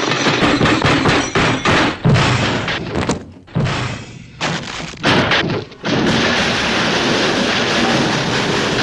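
Hanna-Barbera cartoon crash sound effect, a train-stop pile-up with added junk crashes: a long clattering run of many sharp impacts in quick succession, easing off briefly a few times, then from about six seconds in a steady, even crashing noise with no separate hits.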